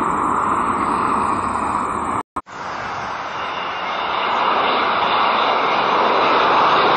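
Jet airliner takeoff noise: a Boeing 737 climbing away, a brief cut, then a McDonnell Douglas MD-80's rear-mounted Pratt & Whitney JT8D engines at takeoff power, growing louder as it climbs out toward overhead.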